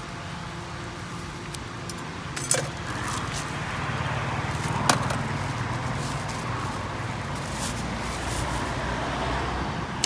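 Street traffic: a motor vehicle's engine running close by, its hum swelling and fading a little, with two sharp clinks about two and a half and five seconds in.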